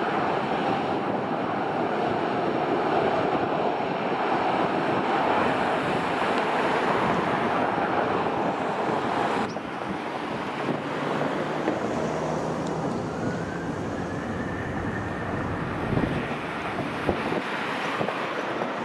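Jet aircraft engine noise mixed with wind buffeting the microphone. The sound changes abruptly about halfway through; after that a high whine rises in pitch and levels off.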